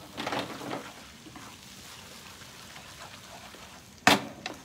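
Kuey teow noodles sizzling in a wok over a gas flame, stirred with a wooden spatula in the first second, then a steady hiss. A single sharp knock about four seconds in.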